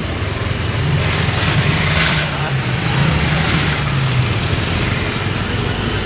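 Motor vehicle engine running at low speed through slow traffic, its note picking up about a second in and easing off after about four seconds, over steady road and wind noise.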